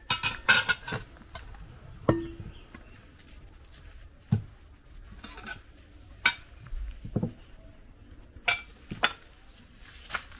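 Plates, bowls and a kitchen knife clinking and knocking on a table as ingredients are handled: a quick cluster of clinks in the first second, then single knocks every second or two.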